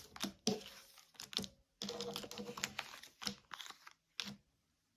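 Tarot cards being handled, drawn from the deck and laid down: a quick, irregular run of light clicks, taps and short rustles of card on card.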